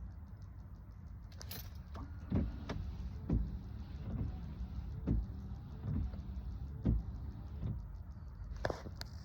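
Low steady rumble with a string of soft thumps, about one a second, and a few sharp clicks near the end, from handling around the car.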